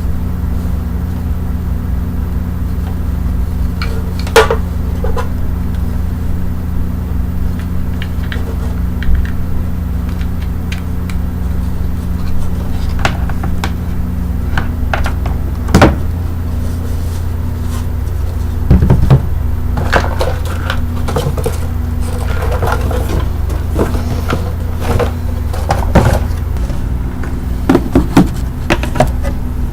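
A small motor's steady low hum with scattered sharp pops and clicks, a few at a time, of bubble wrap and plastic packaging being handled.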